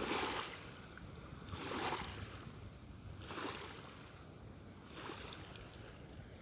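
Small waves washing onto a sandy shore, one soft wash about every one and a half to two seconds.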